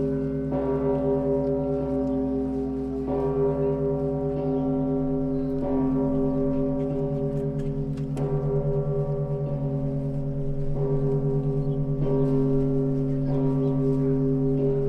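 Russian Orthodox church bells ringing. A heavy bell is struck about every two and a half seconds, its deep hum ringing on and beating between strokes, with lighter bell strokes sounding over it.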